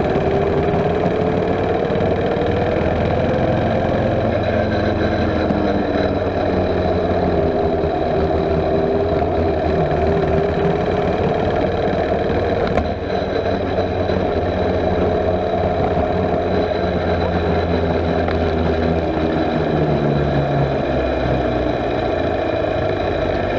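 A mini bike's small engine running as the bike rides along. Its note rises over the first few seconds, then wavers up and down as the throttle changes, with a brief drop about halfway through.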